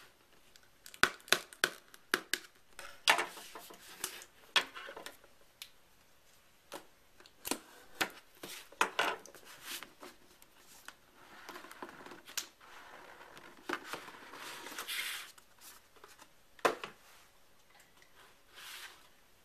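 Scissors snipping and cutting through the sealing tape of a retail product box, then the box and its packaging handled: a scatter of sharp clicks and taps with several stretches of scraping and rustling.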